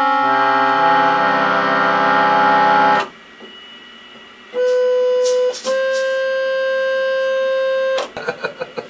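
Organ-tone keyboard playing sustained notes: a chord built up note by note and held for about three seconds, then cut off. After a short pause come a single held note of about a second and another held note of a couple of seconds. A burst of rapid, choppy sounds comes near the end.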